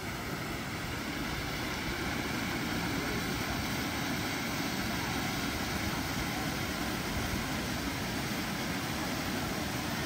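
Small waterfall of three streams pouring steadily over moss-covered rocks, a constant even rush of water.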